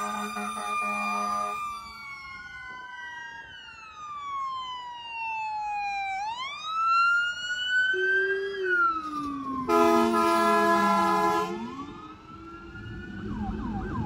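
Emergency vehicles responding with sirens and air horns: a steady air-horn blast at the start, then a siren wailing slowly down and back up with a second lower siren gliding beneath it. A second air-horn blast comes about ten seconds in, and a fast yelping siren starts near the end.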